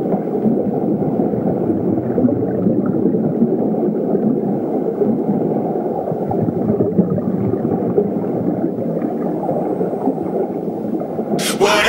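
Wind buffeting the camera microphone: a steady, rough rumbling noise with no music.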